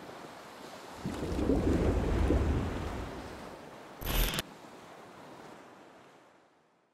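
End-card sound effect: a rushing noise that swells about a second in and then slowly fades away to silence, with a short sharp glitch burst about four seconds in as the logo glitches.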